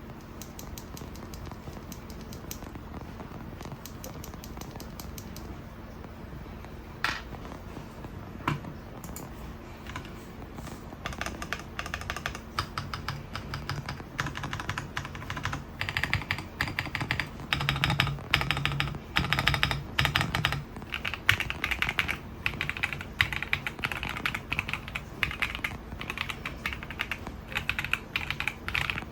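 Typing on a stock, unmodified MonsGeek M3 full-aluminium gasket-mount mechanical keyboard with Haimu Mint Lemon switches and dye-sublimation PBT keycaps. At first there are a few light keystrokes, then two louder single strikes around seven and eight seconds in. From about eleven seconds on, the typing is fast and continuous.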